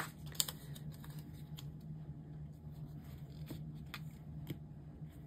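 Light paper-handling sounds from sticker sheets and a paper planner: scattered small clicks and ticks, the sharpest about half a second in and a few more between three and a half and four and a half seconds, over a low steady hum.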